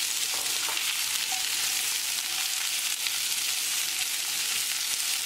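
Crookneck squash and chopped red onion sizzling steadily in hot olive oil in a frying pan over a high flame, with a spatula stirring them through the oil.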